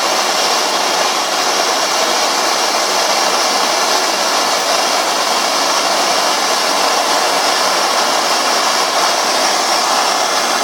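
Gas blowtorch flame burning with a steady hiss, heating a brass cylinder up to silver-soldering temperature.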